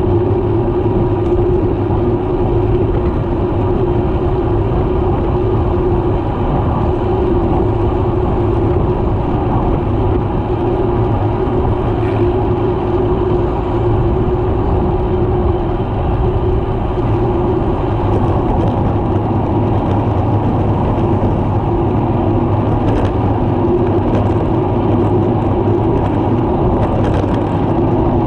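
Steady wind rush and road noise on a handlebar-mounted action camera's microphone as a road bike rolls along at speed, with a constant low hum running through it.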